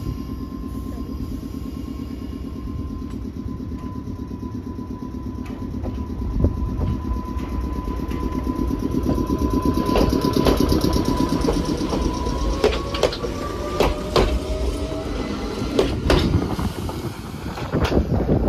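Meitetsu electric train pulling away from the platform and passing close by. A steady whine rises in pitch as it speeds up, over a low rumble, and the wheels give sharp clacks over rail joints as the cars go past.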